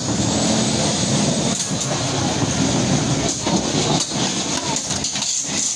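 Two antweight combat robots fighting, a drum spinner and a vertical spinner. A steady high whine from the spinning weapons runs under rattling, clattering drive and impact noise, with several sharp knocks of hits scattered through.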